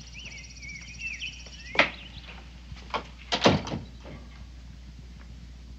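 Birds chirping outdoors for the first second or so, then a wooden panelled door being closed: a sharp click about two seconds in and a short cluster of knocks and clacks around three and a half seconds as it shuts.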